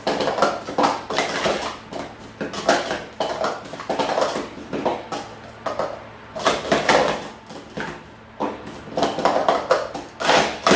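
Plastic sport stacking cups clacking and sliding against each other and a stacking mat during a cycle stack, a fast run of clatter in bursts with short pauses between sequences.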